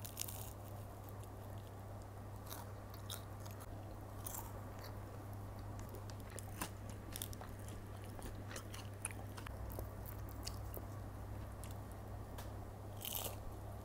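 Crisp breaded crust of a large Taiwanese-style fried chicken cutlet crackling and crunching as it is handled, broken and bitten, with chewing, in scattered crunches over a steady low hum.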